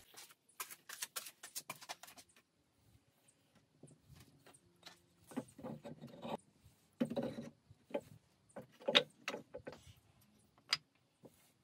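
Irregular light knocks, clicks and rustles of things being handled, busiest in the middle, with one sharp click near the end.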